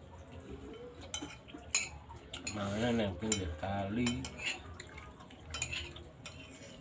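Metal spoons clinking and scraping against a ceramic bowl and plate during a meal, in a few sharp separate clicks. A brief wavering voice sound comes about three seconds in.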